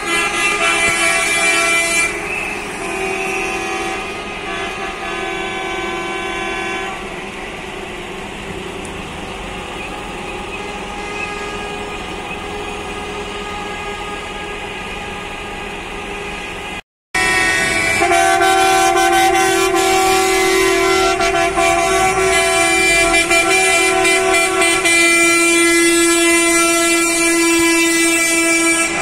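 Horns of passing coaches held in long, steady blasts that overlap and change as different coaches go by, sounded as a protest. They cut out for a moment past the middle and return louder.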